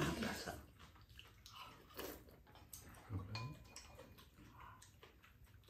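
Two people eating at a low table: faint chewing and slurping, with spoons and chopsticks scraping and clinking against bowls and a metal pot.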